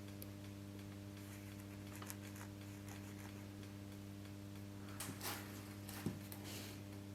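Faint steady electrical mains hum, with a few soft clicks and light knocks in the second half.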